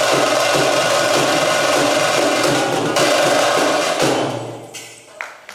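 Loud drum-led percussion music for a Veeraghase folk dance. It cuts off suddenly about four seconds in.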